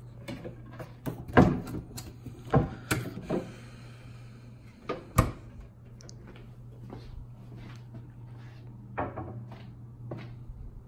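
Wooden dresser drawer or cabinet door being pulled open and pushed shut: a run of sharp knocks and clicks over the first five seconds, then two softer ones near the end, over a steady low hum.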